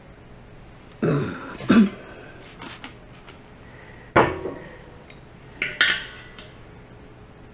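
Metal tools and parts clanking: about four sharp metallic knocks, each ringing briefly, over a faint steady low hum.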